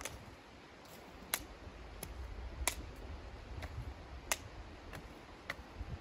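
About half a dozen sharp clicks at irregular intervals, over a low rumble.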